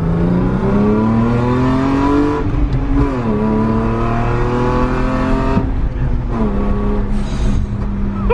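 BMW E46 330i's engine accelerating through the gears: the revs climb, drop at an upshift about two and a half seconds in, climb again, drop about six seconds in, then hold steady. The engine is running normally again now that a dead coil pack, which had left a cylinder misfiring, has been replaced.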